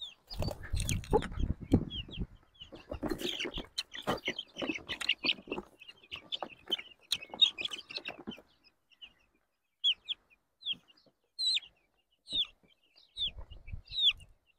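Four-week-old chicken chick peeping: short, high, falling cheeps, repeated. Rustling and low rumbling noise runs under the cheeps for the first several seconds, then stops, leaving single cheeps about once a second.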